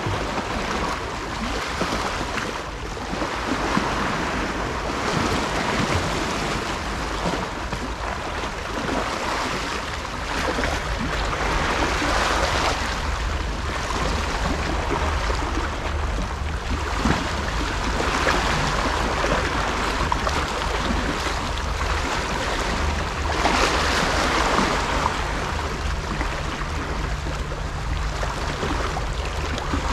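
Small sea waves washing and lapping against shoreline rocks, swelling every few seconds, with wind on the microphone. A faint low steady hum sits underneath from about halfway in.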